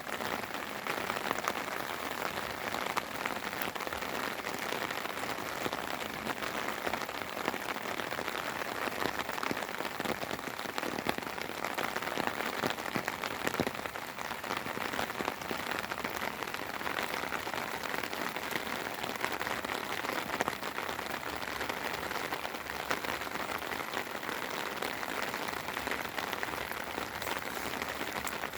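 Steady spring rain falling, a continuous hiss dotted with many small, sharp drop ticks.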